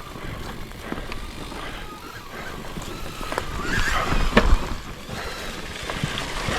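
Bicycle ridden over a rough dirt trail: tyre noise on the ground with scattered knocks and rattles from the bike, and a louder jolt about four seconds in.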